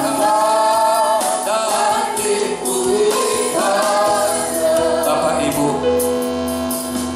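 Male and female voices of a worship team singing a Christian gospel song together through a PA, with amplified instrumental backing.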